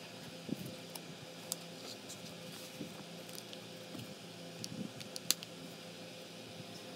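Faint handling sounds of a drawing tablet, its cardboard box and a felt sleeve being moved by hand: soft rustles with a few light clicks and taps, the sharpest a little past five seconds in, over a low steady hum.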